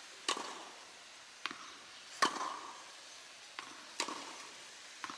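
Tennis ball being struck back and forth in a rally. Three sharp racket hits about two seconds apart, with fainter knocks between them.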